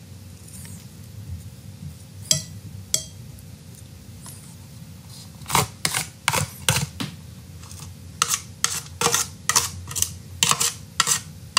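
Chopsticks scraping and tapping inside a thin aluminium foil tray as roasted potatoes, mushrooms and onions are pushed out onto a plate, with the foil crinkling. A couple of isolated clicks early, then a quick run of sharp taps and clicks in the second half.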